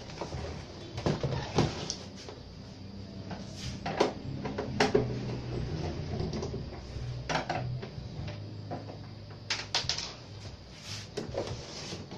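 Plastic cabinet of a 21-inch CRT television knocking and scraping against a wooden table as it is turned over and handled, with a string of sharp knocks spread through, over a low steady hum.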